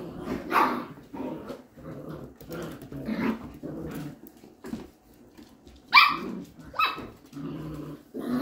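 Goldendoodle puppies play-growling and grumbling as they wrestle, with two sharp barks about six and seven seconds in.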